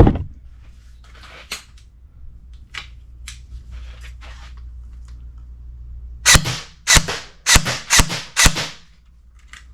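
Zion Arms PW9 Mod 1 battery-powered airsoft electric gun firing five single shots, about half a second apart, in the second half of a few seconds of quiet. A few faint clicks come before the shots.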